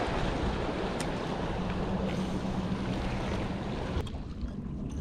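Wind buffeting the microphone on an open boat, a dense rushing noise over a steady low hum; the hiss drops away sharply about four seconds in.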